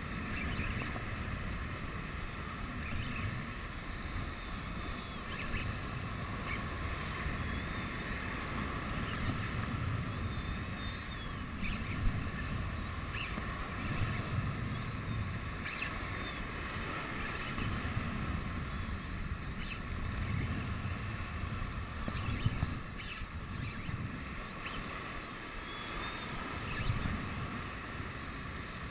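Sea surf surging and washing over shoreline rocks, rising and falling every few seconds, with wind on the microphone and the steady whirr of a spinning reel being cranked as a fish is played.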